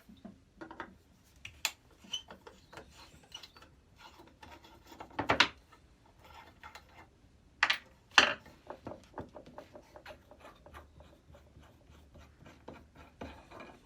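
Workshop handling of a Record No. 71 router plane while its second knob is unscrewed: scattered small clicks, knocks and light rubbing of metal and wood parts, with a louder knock about five seconds in and two more around eight seconds.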